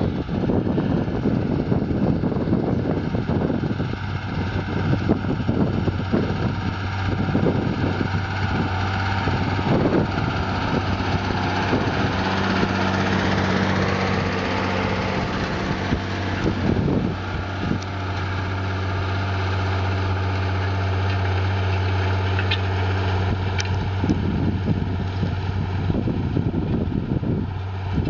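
Diesel engine of farm machinery running steadily with an even low hum, with wind buffeting the microphone, mostly in the first half.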